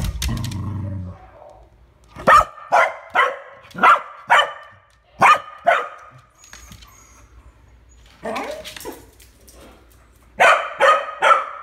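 Corgi barking in a run of sharp barks about two a second, then a few quieter barks and another quick volley near the end: territorial barking at the neighbours.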